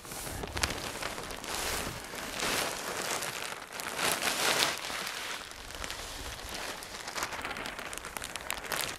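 Compost and manure being poured from a plastic bag into a wheelbarrow of soil: a continuous rushing patter that swells and eases, loudest about four seconds in, with the bag rustling.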